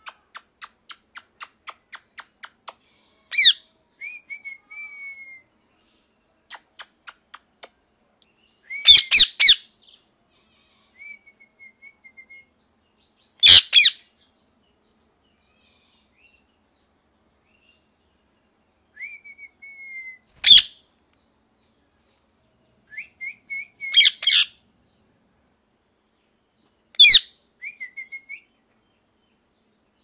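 Rose-ringed parakeet calling: six loud, harsh screeches several seconds apart. Between them come softer short falling whistled notes and quick runs of faint chattering ticks.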